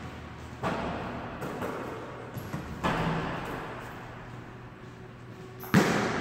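A basketball bouncing hard on a hardwood gym floor: a few separate thuds spread over several seconds, two of them close together near the end, each followed by echo in the large hall.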